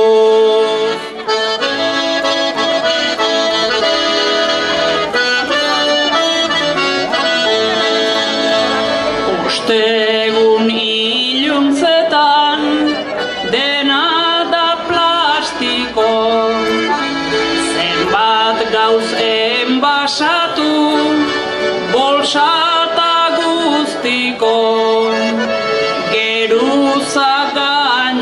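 Small diatonic button accordion, a Basque trikitixa, playing a traditional tune.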